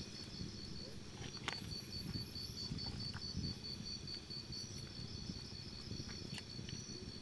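Insects, crickets by the sound, keeping up a steady pulsing high trill, over the low squelch and slop of hands digging through wet mud, with an occasional sharp click.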